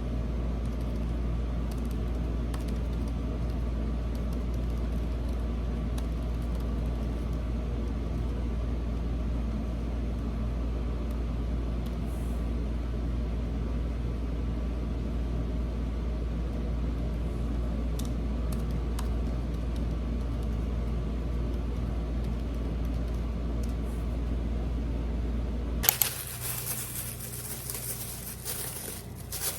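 A machine running with a steady low hum and a faint thin whine, which switches off abruptly with a click near the end, followed by a brighter rustling hiss.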